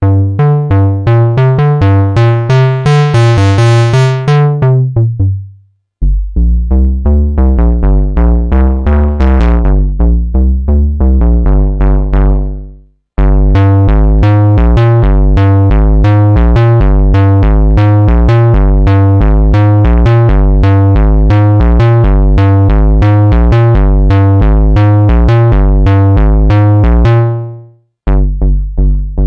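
Moog Subsequent 25 analog synthesizer playing a bright bass patch: fast runs of short, punchy bass notes in several phrases, each fading out before a brief gap. The tone briefly opens up much brighter during the first phrase.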